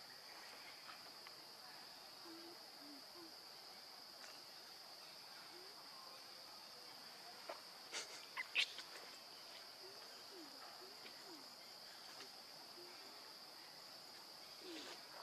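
Faint outdoor ambience with a steady high-pitched insect drone. Soft low hoot-like calls come here and there, and a few short sharp clicks or squeaks sound a little past halfway.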